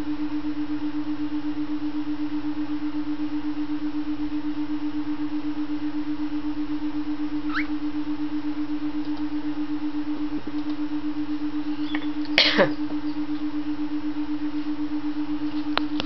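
A steady, pulsing humming tone from a binaural brainwave track, with a short rising bird chirp about halfway through and a louder bird call that sweeps downward about three-quarters of the way in.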